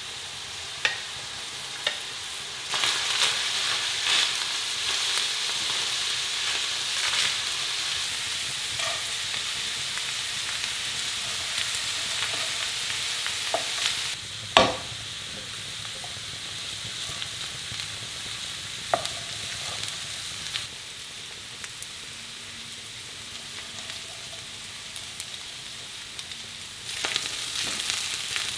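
Food sizzling in a hot frying pan while being stirred, with a utensil knocking on the pan now and then, the sharpest knock about halfway through. The sizzle grows louder about three seconds in and eases off a little past the middle.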